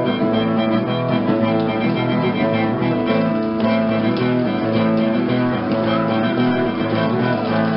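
Guitar playing the introduction to a children's song with held chords, amplified through a loudspeaker.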